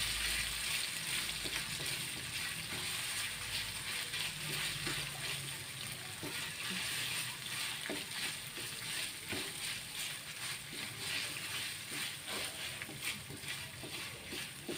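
Ground spice paste sizzling in hot oil in a metal wok while a wooden spatula stirs it and scrapes against the pan, with frequent short scrapes and taps over a steady hiss. This is the spice paste for semur being sautéed.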